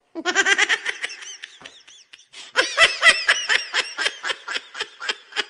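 High-pitched laughter in quick repeated ha-ha bursts, in two runs: a first run, a short break about two seconds in, then a louder run.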